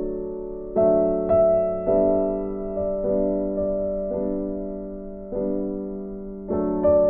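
Background music on soft piano: slow notes and chords struck about every half second to a second, each left to ring and fade.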